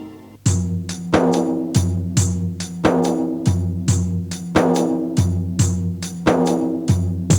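Background music: a held chord fades out, then about half a second in a steady percussive beat starts over sustained pitched notes.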